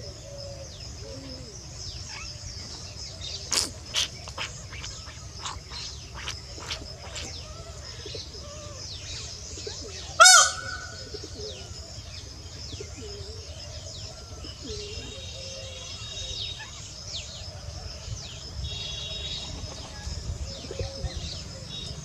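Many birds chirping in trees over a steady high hiss. Two sharp clicks come a few seconds in, and one short, loud bird call about ten seconds in.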